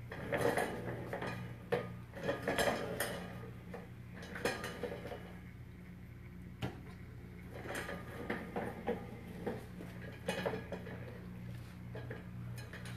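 Scattered clinks and knocks of nickel-plated metal rolling trays being handled, over a steady low hum.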